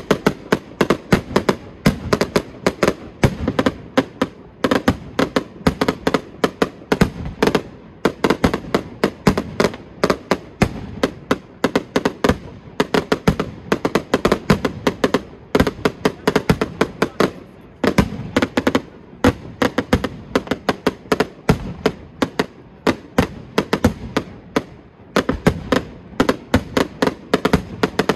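Fireworks going off in a dense, rapid barrage of sharp bangs, several a second, with no pause.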